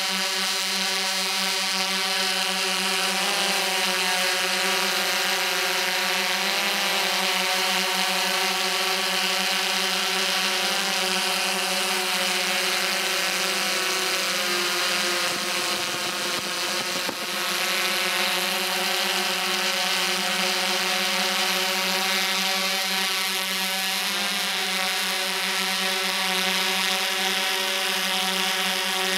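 DJI S1000 octocopter's electric motors and propellers heard from the camera on board: a steady, many-pitched whine with slow wavering where the motor speeds drift against each other, and a brief dip about sixteen seconds in.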